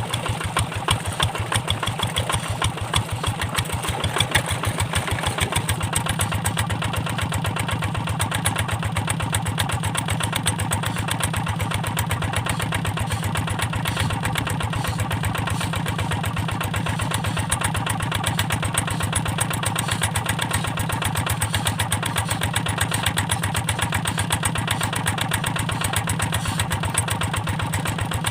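Kubota Quick G1000 hand tractor's single-cylinder diesel engine running steadily, its firing strokes coming as a rapid, even chug.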